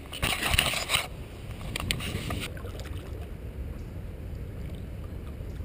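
Kayak paddle splashing in river water: a loud splash in the first second and a shorter one about two seconds in, then a low steady rush.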